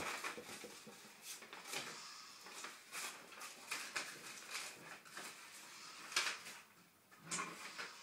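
Small plastic toy trucks clattering, knocking and scraping together as a toddler handles and pushes them, with irregular clicks and rattles and one sharper knock about six seconds in.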